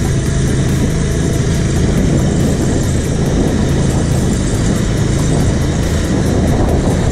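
Caterpillar AP655F asphalt paver's diesel engine running steadily under load while paving, heard up close from on board the machine.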